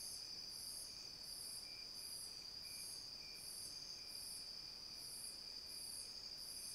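Night insects calling: a faint steady high trill, with a higher chirp repeating about one and a half times a second over it.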